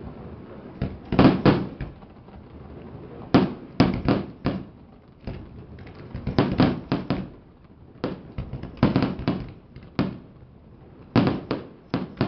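Fireworks display: aerial shells bursting overhead in quick clusters of sharp bangs, several groups of two to four a few seconds apart.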